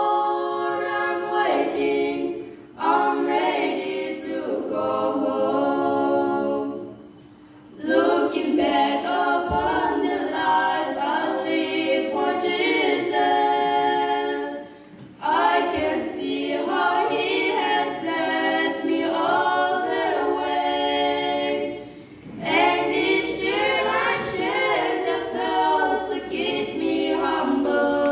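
A trio of girls singing a cappella into handheld microphones. The voices come in sung phrases of several seconds, with brief pauses for breath between them.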